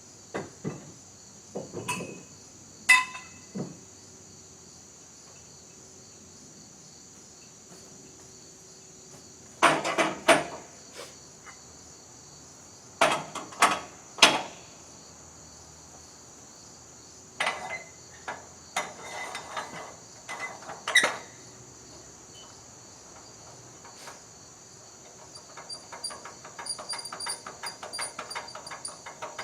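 Crickets chirring steadily in a high band, with scattered sharp knocks and clanks and short bursts of clatter from hands-on work. Near the end comes a fast rattling run of small clicks.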